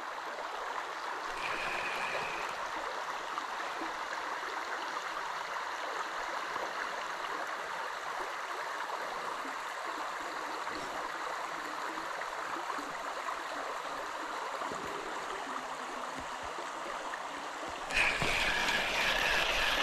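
A trout river flowing: a steady, even rush of running water. About two seconds before the end a louder, rougher stretch starts, with a thin high whine over it.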